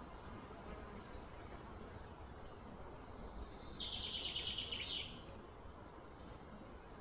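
Faint outdoor ambience with a steady low rumble. About three seconds in, a high animal call slides downward and breaks into a fast trill that lasts just over a second, then stops.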